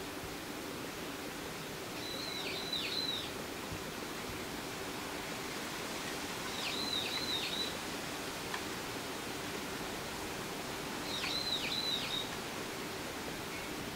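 A bird calling three times, about every four and a half seconds, each call a short high phrase of a few quick down-slurred notes, over a steady outdoor hiss.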